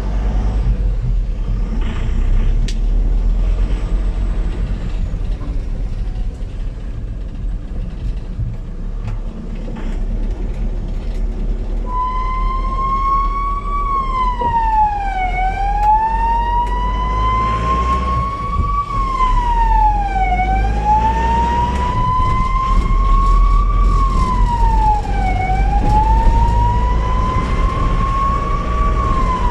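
Ambulance siren wailing, its pitch climbing slowly and then dropping quickly about every five seconds. It starts partway through, over a steady vehicle engine and road rumble.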